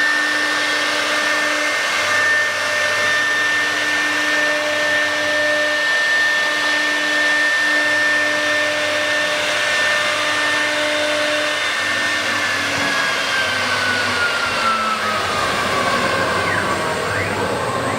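CNC router spindle running with a steady high whine over loud rushing machine noise; about two-thirds of the way in the whine slowly falls in pitch.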